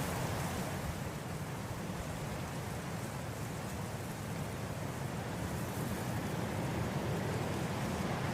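Steady wind blowing through grass, a soft even rush that eases a little about a second in and swells again toward the end.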